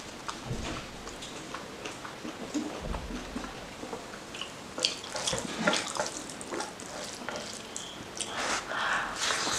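Wet, sticky eating-by-hand sounds: chewing and lip smacking, with fingers squishing and mixing rice into oily mutton fat curry. It comes as a run of small wet clicks, louder about five seconds in and again near the end.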